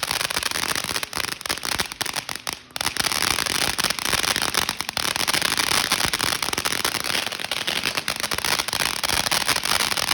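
Firework going off in a dense, continuous run of rapid crackling pops, loud enough to hurt the ears. There is a short lull about two and a half seconds in, then the crackling carries on.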